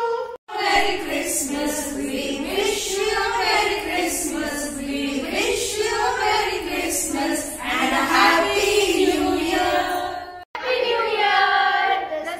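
A group of voices singing together, breaking off for an instant twice, about half a second in and near the end.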